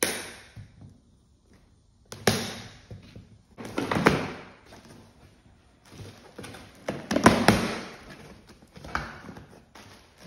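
A cardboard shipping box being unpacked: packing tape slit with a knife, cardboard flaps pulled open and plastic wrap rustled. It comes in several short noisy bursts with a few knocks and quiet gaps between.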